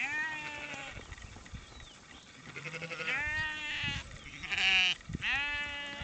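A flock of sheep bleating: about four separate drawn-out, wavering calls, the loudest and harshest one a little past the middle.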